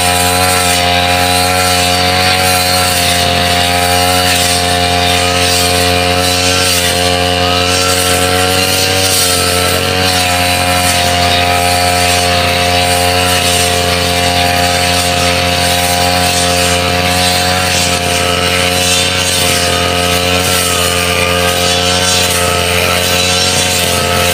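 Backpack brush cutter's small engine running steadily at high revs as it cuts tall grass, its pitch wavering slightly now and then under the load.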